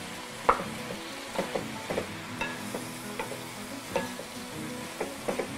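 Wooden spoon stirring sliced onions, tomatoes and green vegetables in a frying pan, the spoon knocking against the pan irregularly about a dozen times over a light sizzle of the vegetables cooking.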